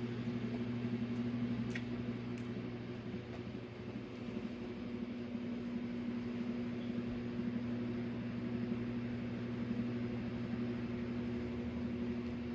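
A steady low hum from a running fan or appliance, with a couple of faint clicks about two seconds in.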